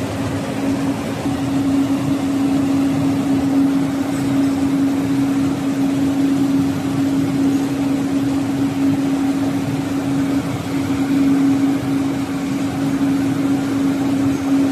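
Flat glass tempering furnace line running: a loud, steady machine hum holding one constant tone over an even hiss, with no breaks or knocks.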